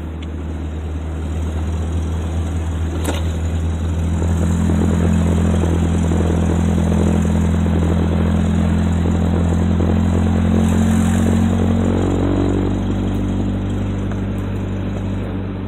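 The 22RE four-cylinder engine of a 1991 Toyota pickup running as the truck drives. The engine note builds a few seconds in, holds steady, and eases off near the end.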